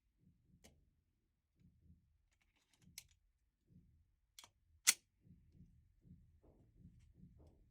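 A few faint, sharp clicks, the loudest about five seconds in, over soft low pulses coming about twice a second.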